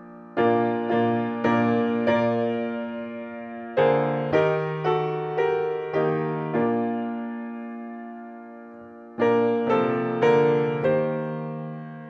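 Slow solo piano music: three phrases of struck notes and chords, coming in about half a second in, about four seconds in and about nine seconds in, each note ringing and dying away.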